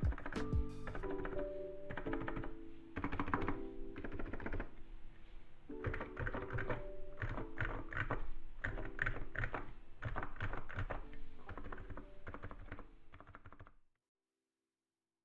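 Typing on a Niz Atom68 electro-capacitive keyboard with MelGeek MDA keycaps: a dense run of soft keystrokes, mixed with lo-fi background music. Both fade, then cut to silence near the end.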